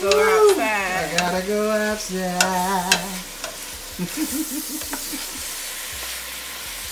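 Chicken pieces sizzling as they brown in a hot pot, a steady frying hiss with a few sharp clicks. A voice sings a short wavering phrase over the first three seconds.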